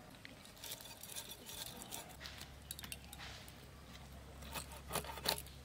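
Scattered light scraping and clicking as small fish are scaled and cut against a boti, a curved blade set upright in a wooden block, with a few sharper clicks near the end.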